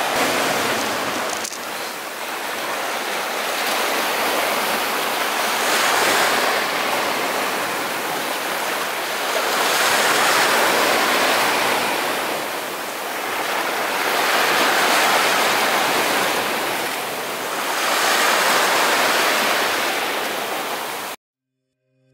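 Small sea waves breaking and washing up onto a sandy shore, the surf swelling and falling back every three to four seconds. It cuts off suddenly near the end.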